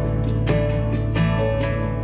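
Background song with guitar, in an instrumental gap between sung lines.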